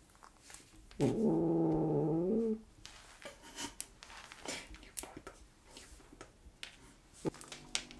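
Maine Coon cat giving one long, drawn-out call of about a second and a half that rises in pitch at the end. Light clicks and taps come before and after it.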